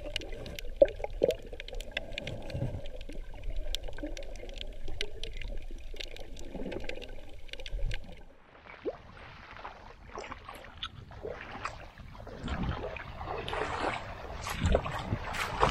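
Muffled underwater sound with a dense crackle of small sharp clicks; about eight seconds in it gives way to uneven splashing of feet wading through shallow water, growing louder toward the end.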